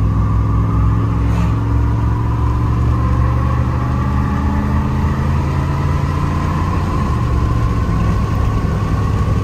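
Gasoline V8-type engine of an old stock pickup truck pulling steadily under acceleration, heard from inside the cab, its pitch rising slowly as road speed builds. It runs on freshly replaced spark plugs and plug wires, which the driver feels give smoother, stronger power.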